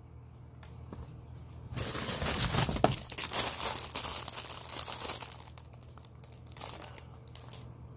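Packaging crinkling and rustling as an item is handled and unwrapped. It is loudest from about two to five seconds in, then fainter.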